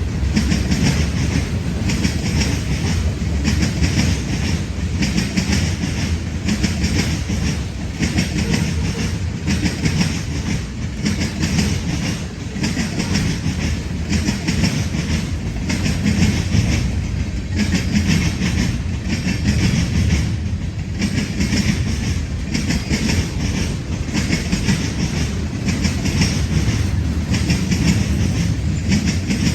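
CSX freight train cars rolling past, their wheels clicking over rail joints in a steady repeating rhythm of about one beat a second.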